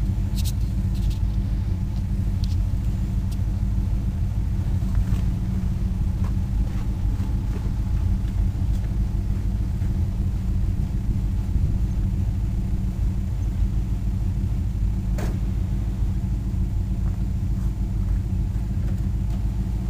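1995 Pontiac Firebird Formula's 5.7-litre LT1 V8, fitted with long-tube headers, idling steadily with a deep exhaust rumble.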